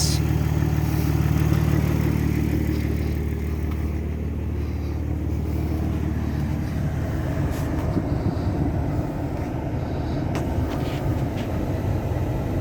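Dodge Journey's six-cylinder engine idling steadily, with the coolant reservoir cap off so air can work out after a reservoir replacement; no air bubbles have shown. About halfway through, the steady hum turns rougher and noisier, with a few faint clicks.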